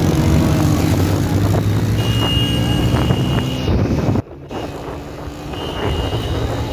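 Motorcycle engines running together as a group of bikes rides along close by. The sound drops off abruptly about four seconds in, then returns quieter.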